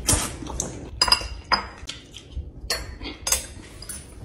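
Metal fork clinking and scraping against a ceramic bowl of pasta: several sharp, irregularly spaced clinks.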